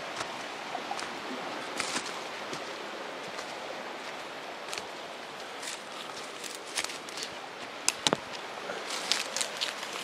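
Footsteps crunching through dry leaf litter and twigs on a forest slope, with two sharp snaps about eight seconds in, over a steady rushing background.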